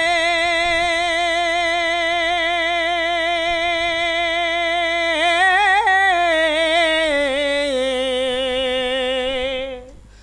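A single voice singing a wordless passage of a Bengali Islamic gojol: a long held note with vibrato for about five seconds, then a brief rising ornament and a slide down to a lower held note that ends just before the close.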